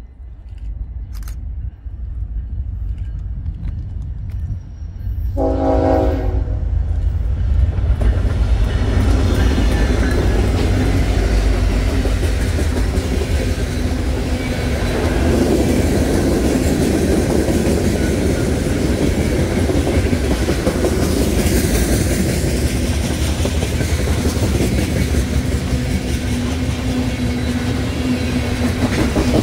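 Diesel freight train approaching, its lead locomotive sounding one short horn blast about five seconds in. The GE ES44DC and EMD SD70ACe locomotives then run past, and a long string of covered hoppers and tank cars rolls by, wheels clicking over the rail joints.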